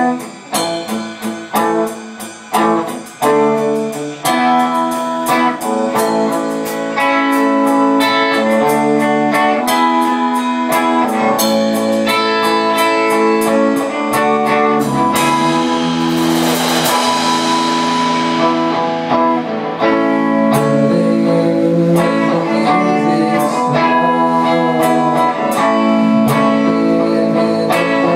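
Rock band playing live: electric guitars, bass and a Ludwig drum kit in an instrumental intro. The first few seconds are short stop-start hits, then the full band plays steadily, with a cymbal crash swelling up about halfway through.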